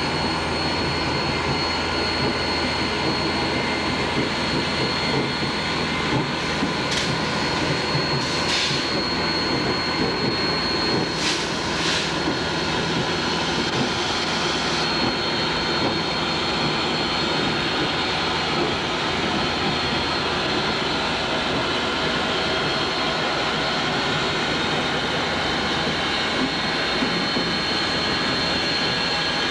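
Steady roar and hiss of a 2-8-0 steam locomotive standing under steam while the electric turntable carrying it turns, with a thin high whine throughout. A few brief sharper hisses come about 7 to 12 seconds in.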